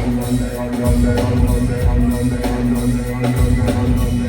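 Live band playing an instrumental passage with no vocals: a drum kit keeps a steady beat under heavy bass and a long held tone.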